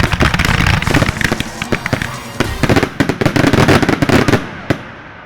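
Fireworks finale barrage: a dense, rapid run of shell bursts and crackling reports that thins out, with a last single bang near the end before dying away.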